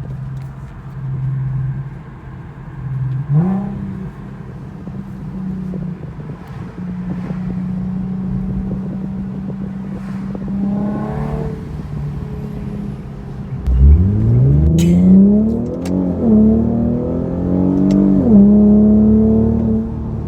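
Infiniti Q50's V6 idling through an aftermarket exhaust, blipped briefly twice. About two-thirds through it gets much louder, revving up and dropping back twice before holding at a higher idle.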